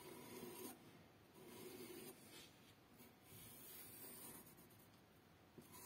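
Faint scratching of a pencil on paper as it traces along the outline of a knife blade, in a few short strokes.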